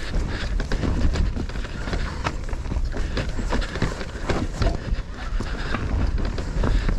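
Specialized Levo SL electric mountain bike riding a dirt forest trail: a steady low wind rumble on the microphone, with frequent sharp clicks and rattles from the bike as it runs over the bumps.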